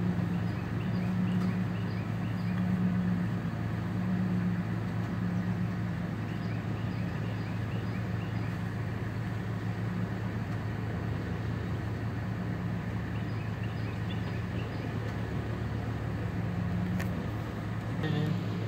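Steady low hum of an idling engine, with faint short high chirps over it.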